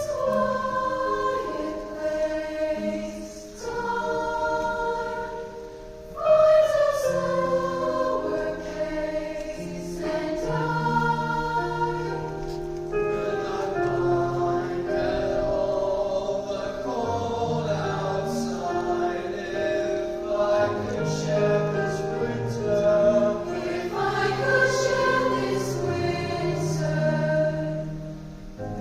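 A vocal ensemble singing in several-part harmony, holding chords over a moving bass line, with a short dip about six seconds in before the next phrase comes in loudly.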